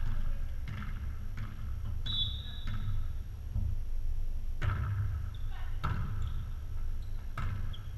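Volleyball game sounds echoing in a gymnasium: scattered thumps, about six in eight seconds, with a short high tone about two seconds in and faint players' voices.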